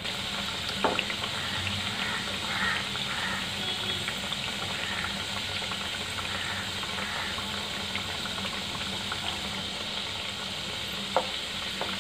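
Khajuri dough pieces deep-frying in hot oil in a kadhai: a steady bubbling sizzle. A wooden spatula stirs them, with two sharp knocks, one about a second in and one near the end.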